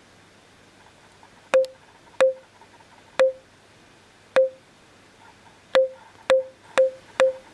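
Impact hammer tapping a suspended bamboo tube eight times at uneven intervals, closer together near the end. Each tap is a sharp knock followed by a brief ringing tone at one pitch, the tube's resonance excited for measurement, heard dry with no echo in an anechoic chamber.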